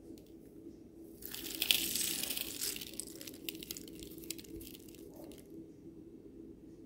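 A handful of mixed seeds (sunflower, flax, pumpkin, chia and sesame) sprinkled onto chopped salad greens: a dense patter of small grains starting about a second in, thinning to scattered ticks over the next few seconds.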